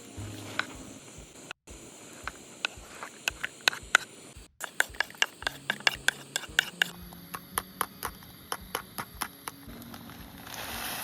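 Campfire crackling: sharp, irregular pops and snaps several times a second over a low hiss, with faint low voices underneath.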